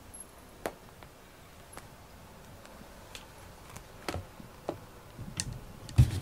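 Light scattered knocks, clicks and rustles of a cat moving about and stepping among soft toys and a box of litter pellets, with one heavier thump near the end.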